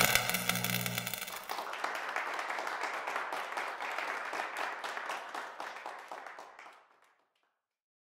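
The tail of a held intro music chord, ending about a second and a half in, gives way to audience applause that gradually fades out.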